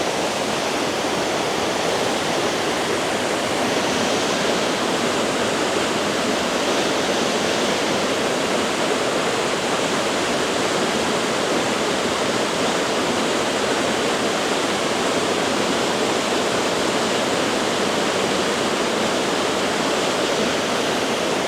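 Waterfall, a small beck falling through a rocky gorge, heard close up: a loud, steady roar of falling water, unbroken throughout.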